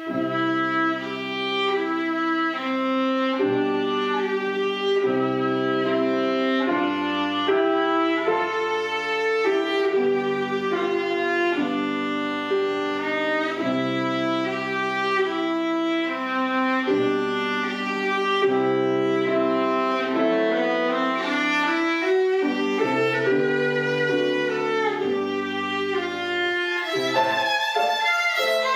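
A viola playing a bowed melody with piano accompaniment. Near the end it gives way to a violin.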